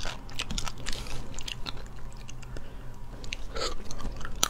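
Close-miked chewing and mouth sounds of a person eating small spiced sea snails, with many short, sharp clicks scattered throughout.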